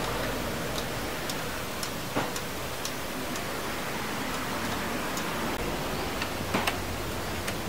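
Scattered, irregular light clicks and taps from hand and tool work on a scooter's rear end during a shock absorber change, with a sharper double click near the end, over a steady background hiss.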